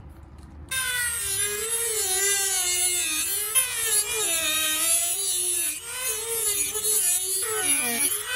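Corded Dremel rotary tool running and grinding away the edge of a car dashboard panel to enlarge a cut-out. Its whine starts under a second in and dips and rises in pitch as the bit bites into the material and eases off.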